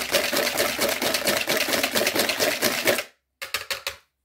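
Wire balloon whisk beating egg yolks, sugar and cream in a mixing bowl by hand, the wires clicking and scraping against the bowl in quick, continuous strokes. The whisking stops about three seconds in, followed by a few short taps.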